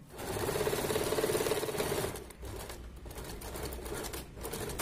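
Electric sewing machine stitching the hem of a net-and-lining kurti. It runs in a steady rapid stitch for about two seconds, then goes in shorter, quieter spurts with brief stops.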